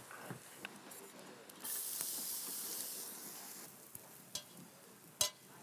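Food sizzling in a hot pan: a hiss that starts suddenly and lasts about two seconds. A couple of small clinks follow, and near the end comes a sharp clank of a steel pan or utensil against a pot.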